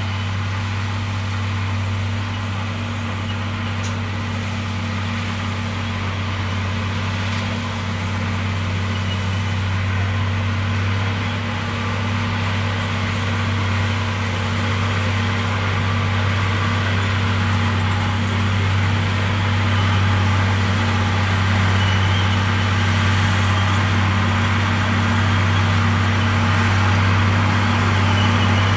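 Komatsu D58E bulldozer's diesel engine running steadily with a constant low drone, growing gradually louder toward the end.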